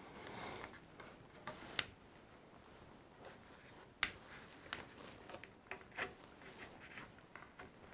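Faint scattered clicks and taps of small plastic toy parts being handled and pressed into place on a playset's base plate, with a sharper click about four seconds in.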